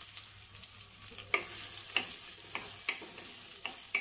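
Chopped onions sizzling in hot oil in a metal pot, a steady high hiss. A utensil stirring them knocks and scrapes against the pot about six times in the last three seconds, some strikes with a short metallic ring.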